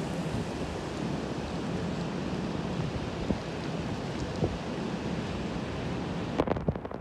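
Heavy wind-driven rain, a steady rushing hiss. Near the end the hiss abruptly goes duller and a few knocks follow.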